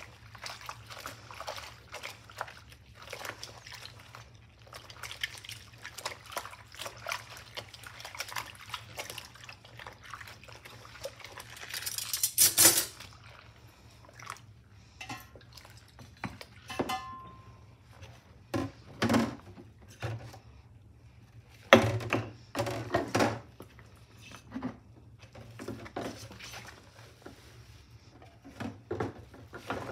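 Rubber-gloved hands washing dishes in a sudsy stainless steel sink: water sloshing and dripping, with soft knocks and clinks of utensils and a glass. A louder burst of sound comes about twelve seconds in, and a few sharper knocks follow later.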